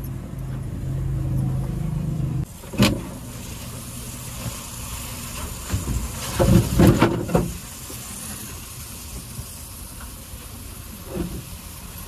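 A steady low machine hum stops suddenly about two and a half seconds in, followed by a sharp knock. A few seconds later comes a run of bumps and thuds, typical of a blanket and cover being handled and laid out inside a truck cab.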